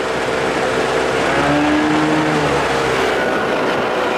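Outboard motor running steadily, pushing a small aluminium boat under way, with wind and water rushing along the hull. Its pitch rises and falls briefly near the middle.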